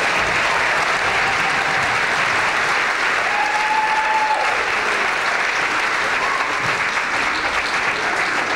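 Audience applauding steadily in a hall at the end of a musical number, with one brief held call rising above the clapping a little past three seconds in.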